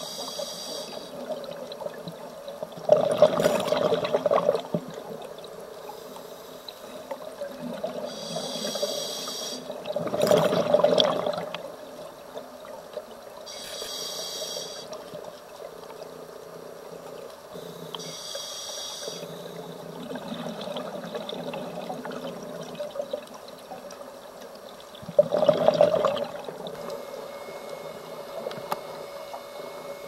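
Scuba diver's regulator breathing heard underwater: short hissing inhalations through the regulator every few seconds, and three louder rushes of exhaled bubbles.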